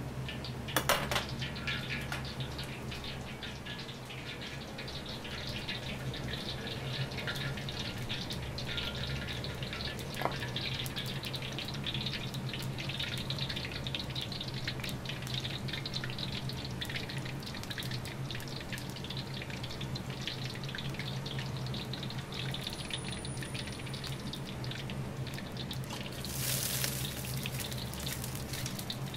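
Shrimp deep-frying in hot oil in a wok: a dense, steady crackle and sizzle of spitting oil, with a few sharper pops, over a steady low hum.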